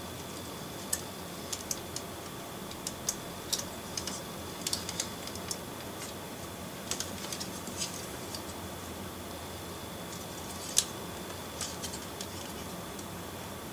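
Small, irregular clicks and ticks of the metal and plastic parts of a 00 gauge model locomotive chassis being handled and picked at by hand, with one sharper click about eleven seconds in, over a steady faint hiss.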